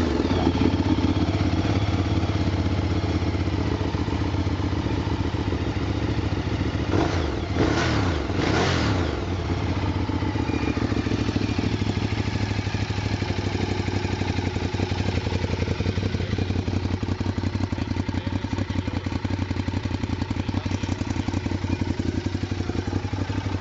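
Ducati Diavel's V-twin engine idling with a steady pulsing beat, revved twice in quick succession about seven to nine seconds in, the revs rising and falling back before it settles to idle again.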